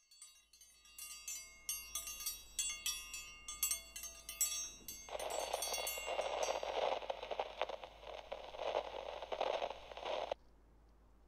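Ringing chime strikes, several bright tones overlapping for the first five or six seconds. About five seconds in, a steady rushing noise joins them and runs on until everything cuts off abruptly shortly before the end.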